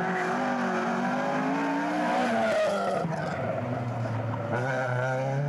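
Rally car engine revving hard through a bend, its note rising and falling with gear changes, while the rear tyres spin and squeal.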